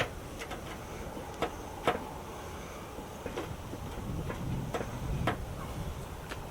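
Irregular light clicks and taps, about a dozen, the sound of handling parts and tools while working on a car, over a low steady background rumble.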